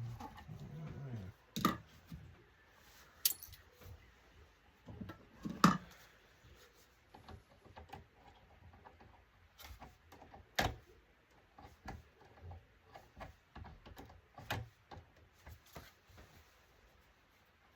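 Irregular clicks, taps and knocks of hand tools, screws and metal and plastic parts being handled while an LCD monitor is taken apart. The sharpest knocks come a few seconds apart, the loudest about five and a half seconds in.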